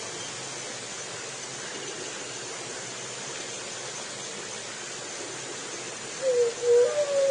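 Steady hiss, then near the end a juriti (Leptotila dove) starts cooing: a few low, loud hooting notes in quick succession.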